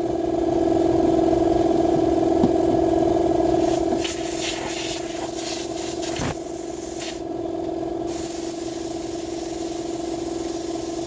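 Hissing sprays of brake cleaner and compressed air over the steady hum of a running motor. The hiss comes and goes, stopping briefly around seven to eight seconds in.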